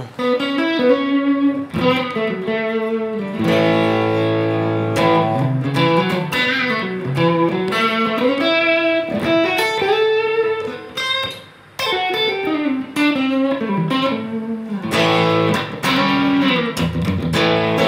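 Electric guitar played through a Valeton GP-200 multi-effects unit on a crunch patch, a mildly overdriven tone. Held chords and single-note lines with bent notes, a brief break about two-thirds through, then short, choppy chords near the end.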